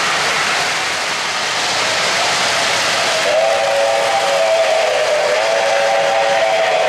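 Model steam locomotive's onboard sound system blowing a three-chime steam whistle, one steady chord held from about halfway through, over the steady rushing noise of the O-gauge trains running on three-rail track.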